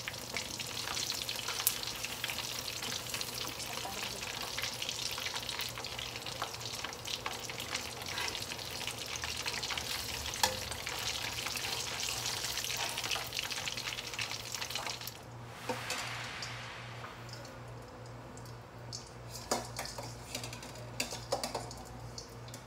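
Chicken wings deep-frying in hot oil in a wok during their second fry, crackling and sizzling as metal tongs lift them into a wire strainer. The sizzle dies down about two-thirds of the way through, leaving a few scattered clicks.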